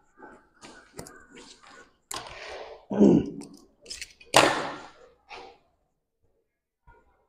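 Cotton fabric rustling and being handled as pleats are gathered by hand, a string of short rustles and soft thumps, the loudest about three and four and a half seconds in.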